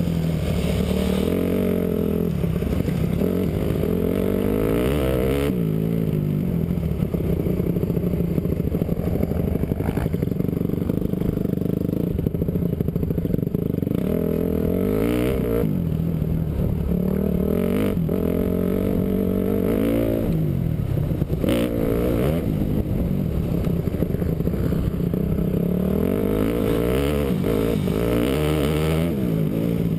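Honda CRF450 dirt bike's single-cylinder four-stroke engine heard up close from onboard while riding, the revs climbing and dropping again and again with the throttle.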